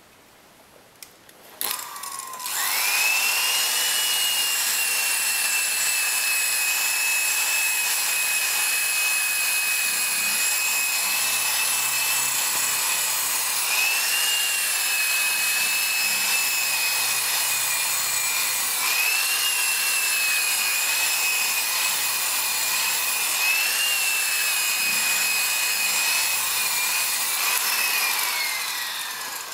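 Small electric polisher spinning a buffing pad over a glossy wood trim panel. Its motor whine rises as it spins up about two seconds in, holds steady with brief dips in pitch now and then, and falls away as it winds down near the end.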